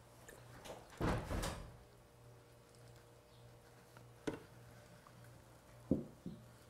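Quiet handling noises as passion fruit pulp is poured from a ceramic bowl into a stand mixer's bowl. There is a soft bump about a second in, a single click past the middle and two knocks near the end, over a faint low hum.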